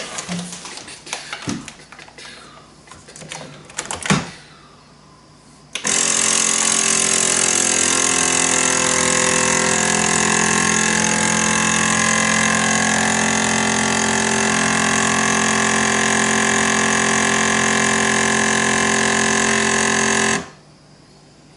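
Cabela's commercial-grade vacuum sealer's pump running steadily for about fifteen seconds, drawing the air out of a bag of ground meat, then cutting off suddenly. Before it starts there are a few clicks of handling, with a sharp click about four seconds in.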